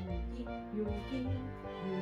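Soft background music: held notes over a steady low bass line.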